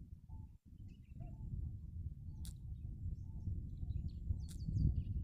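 Background ambience with a low rumble and scattered bird chirps, broken by two sharp clicks about two seconds apart; the sound cuts out for an instant near the start.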